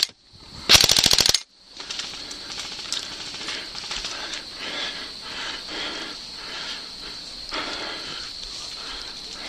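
Airsoft gun firing a short full-auto burst of rapid, evenly spaced shots lasting under a second, about a second in, followed by quieter field background.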